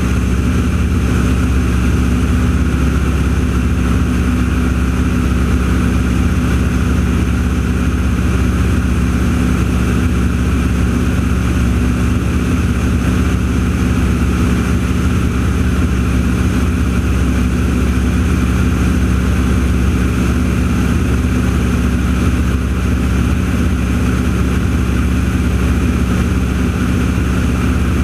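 Steady engine drone at an unchanging pitch with a low hum, running evenly throughout.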